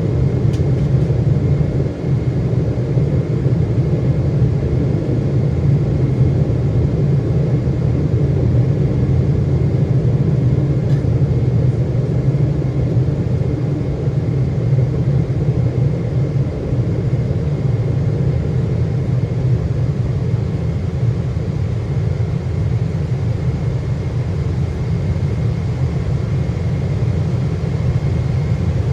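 Boeing 777-300ER's GE90 turbofan engines running: a steady, loud rumble with a faint, even whine above it.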